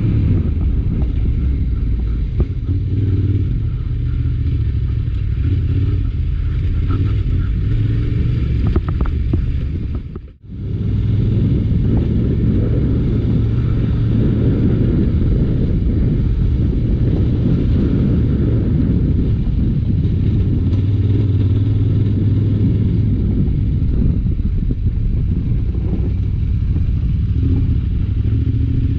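Adventure motorcycle engine running under way on an off-road ride, a steady low rumble with some clatter. The sound drops out sharply for a moment about ten seconds in, then carries on.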